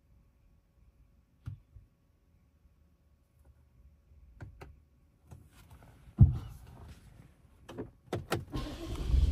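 Quiet car cabin with a few soft clicks and one sharp thump a little past halfway. Near the end the BMW X6's 4.4-litre twin-turbo V8 starts and settles into a steady low running sound.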